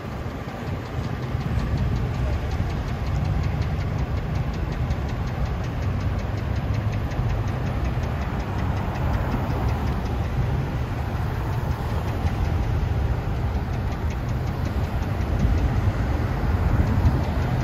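Engines of a slow line of police cars and other vehicles passing, over the steady low rumble of an engine idling close by.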